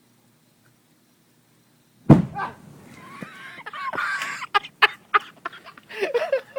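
A bonfire being lit: a sudden loud burst about two seconds in, then a wavering high sound and a string of sharp cracks and pops.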